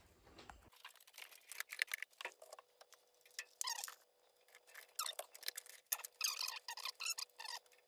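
Light irregular clicks and plastic rustling of network cables being handled and plugged in at a router, over a faint steady hum.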